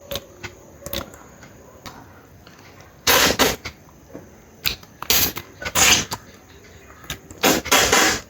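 Close-miked eating: chewing and crunching food, with small clicks and three louder crunchy bursts, about 3, 5 and 7.5 seconds in.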